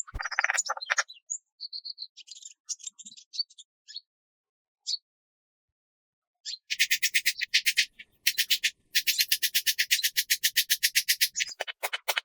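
Wild animal calls: a few short high chirps, then a fast, even, high-pitched pulsing trill starting about six and a half seconds in.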